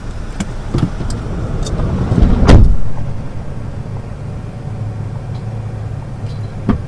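A van's side door shuts with a loud bang about two and a half seconds in, after a building rumble. The vehicle then runs with a steady low hum, heard from inside the cabin.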